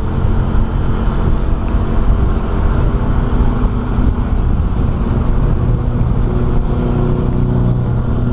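A motor vehicle's engine running steadily, with a dense low rumble beneath.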